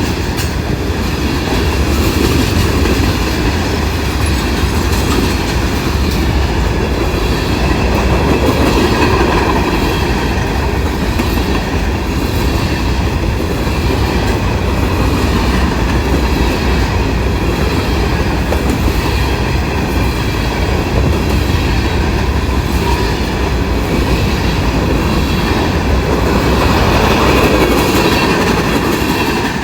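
Norfolk Southern freight train rolling past, with a steady, loud rumble of its cars and wheels on the rails.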